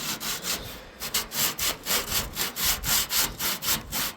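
Hand sanding the rusted metal of a refrigerator evaporator cover: abrasive scrubbing back and forth in quick strokes, about four a second, after a short pause about a second in.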